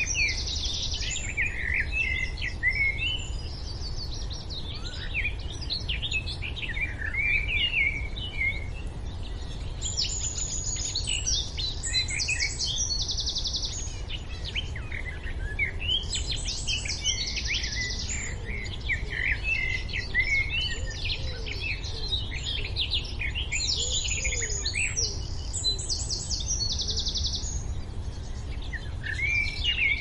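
Birds chirping and trilling in a busy chorus, the calls coming in clusters every several seconds over a steady low rumble.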